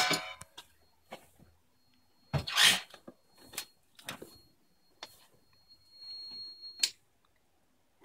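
Steady high-pitched hum, like a beeper going off, from a Power Jack 1200 W grid-tie inverter. Its cooling fans are being started on a low voltage and have not yet begun to spin. The hum stops with a click near the end as the inverter is switched off, and there are a few handling knocks and a short rustle before that.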